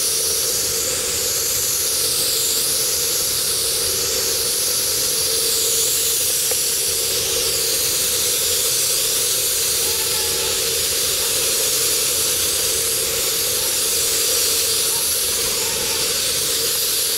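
Iwata WS-400 spray gun with a 1.5 HD nozzle hissing steadily as its compressed air atomises clear sealer over a car roof, with a faint steady hum underneath.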